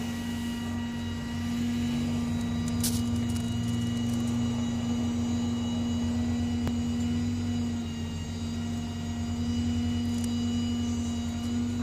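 A vehicle engine idling: a steady low hum with a fine rapid pulse underneath, and a brief crackle about three seconds in.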